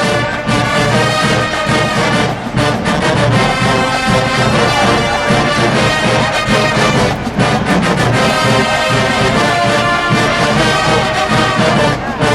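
HBCU marching band's brass section, trombones and trumpets, playing loudly and without a break. The sustained notes drop out briefly a couple of times between phrases.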